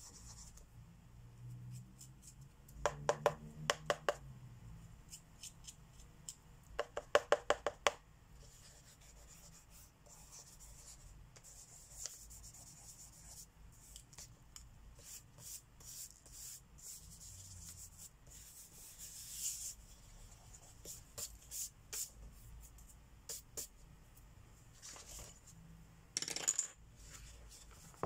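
Plastic marker pens clicking and clinking against each other in two quick rattling runs a few seconds apart, then scattered light taps and a couple of short scrapes.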